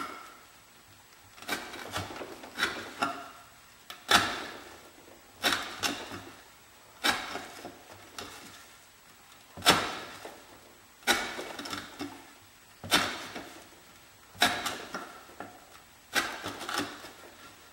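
Swamp Rat Rodent Solution knife slicing through 1/4-inch sisal rope on a wooden board, one cut about every second and a half. Each cut is a sharp crunch of the rope fibres parting, trailing off in a short crackle.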